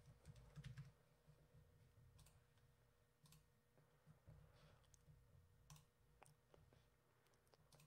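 Near silence with a handful of faint, scattered clicks from a computer mouse and keyboard.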